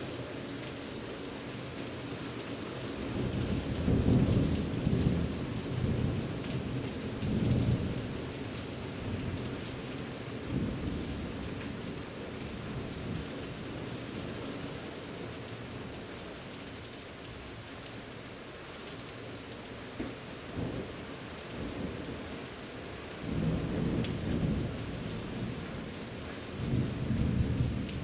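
Summer thunderstorm: steady rain with thunder rumbling over it, a long roll about four seconds in and more rolls near the end.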